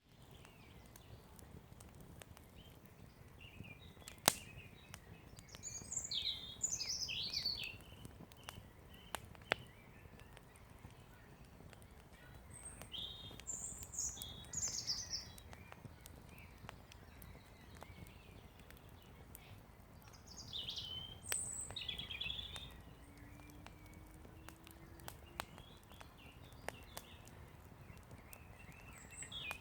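Campfire burning with a low steady rush and a few sharp pops, the loudest about four seconds in. Birds chirp in short bursts every several seconds.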